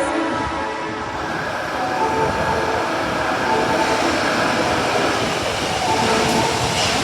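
Osaka Metro Tanimachi Line 22 series subway train running on the track, a steady, dense running noise that grows slightly louder, with faint pitched tones coming and going over it.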